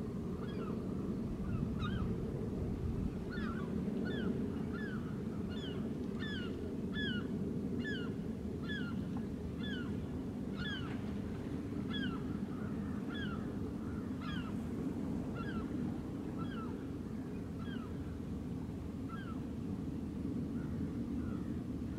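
A bird calling over and over, a series of short down-slurred notes at about two a second that thin out toward the end, over a steady low background rumble.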